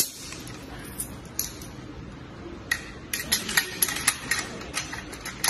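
Sharp clicks and clinks, a few scattered at first, then coming quickly one after another from about halfway through.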